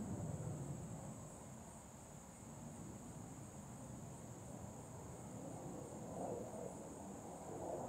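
Steady high-pitched insect drone over a low distant jet rumble, which fades over the first couple of seconds and swells again near the end as the next jet pass approaches.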